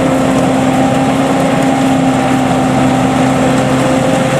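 Home-built Vietnamese tracked rice combine harvester's engine running steadily, with an even mechanical drone and hum and no change in speed.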